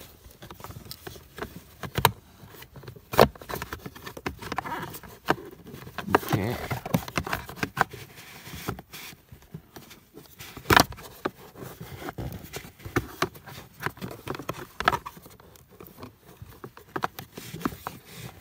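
Hands working at the plastic blower motor housing under a pickup's dashboard: irregular clicks, taps and rustling, with a sharper knock about eleven seconds in.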